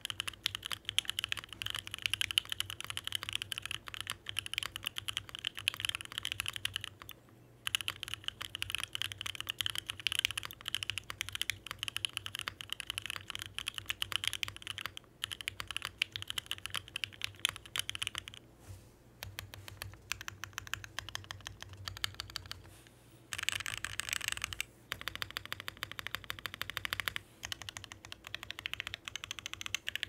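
Bakeneko mechanical keyboard with an FR4 plate and lubed OP Black switches being typed on at a fast, steady pace: a dense run of keystrokes, pausing briefly about seven seconds in and a few times in the second half.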